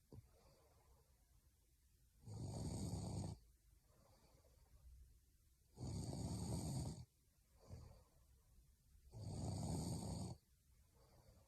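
A young woman snoring in her sleep: three snores about a second long, roughly every three and a half seconds, with fainter breaths between them.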